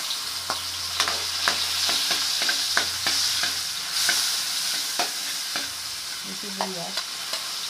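Chopped garlic and ginger sizzling in hot oil in a pan, with a steady hiss and irregular clinks and scrapes of a metal spatula against the pan as they are stirred.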